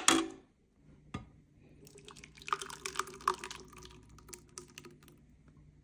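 Thick rice kheer pouring from a steel pot into a serving bowl, a few seconds of wet plops and drips. A single knock comes about a second in.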